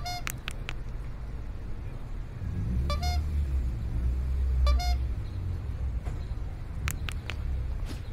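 Street traffic ambience: a low traffic rumble that swells midway as a vehicle passes, with three short car horn toots and a few sharp clicks near the end.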